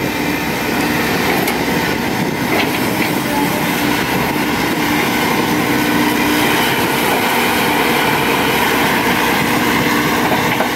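Volvo EC210D crawler excavator at work, its diesel engine running steadily under load as the boom and bucket dig and scoop loose soil.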